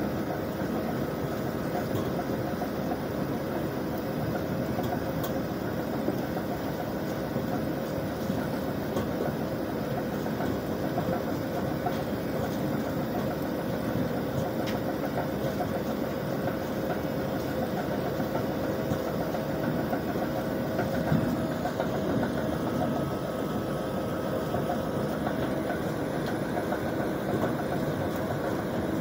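ROPA Maus 4 sugar beet cleaning loader running steadily, its diesel engine and conveyors working without a break, with a few steady whining tones.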